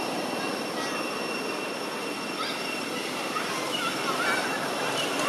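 Steady outdoor background noise: a continuous hiss with a thin, steady high-pitched tone running through it, and a few faint chirps about four seconds in.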